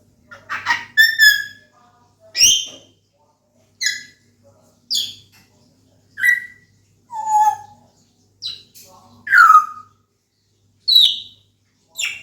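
Young African grey parrot, seven months old, giving a string of about ten short whistles and calls roughly a second apart, several of them sliding down in pitch.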